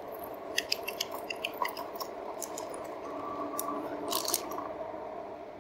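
RadMini electric bike riding on beach sand, its geared rear hub motor giving a steady whine, with light clicks and rattles from the bike and its handlebar-mounted gear.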